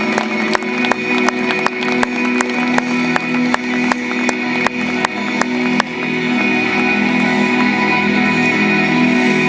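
Instrumental post-rock band playing live, led by layered electric guitars. A steady pulse of sharp picked or struck notes, a little under three a second, gives way about six seconds in to a sustained, fuller wash of sound.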